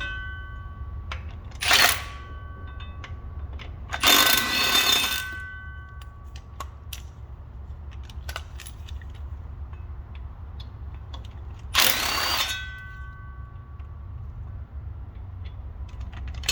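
Metal hand tools clanking against metal three times, each clank leaving a short bright ring, over a steady low hum.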